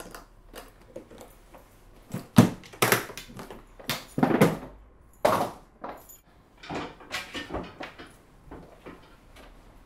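Hard-shell suitcase being handled: irregular clicks and knocks from its shell and fittings, mixed with short rustles of fabric, in a small room.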